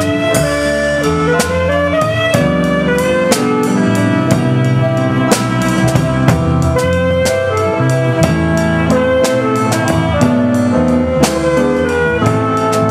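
Live band music: a drum kit keeps a steady beat with cymbal hits under a sliding melody line.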